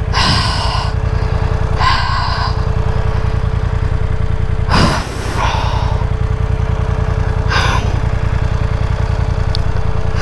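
BMW adventure motorcycle's engine idling steadily while the bike stands still, with four short rushing noises over the idle.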